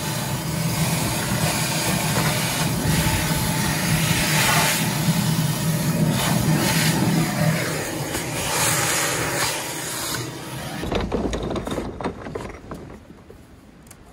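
Wet/dry vacuum cleaner running loudly while sucking water out of the bottom of a drained hot tub, a steady hiss over a motor hum. The noise eases after about eight seconds and dies away in the last few seconds.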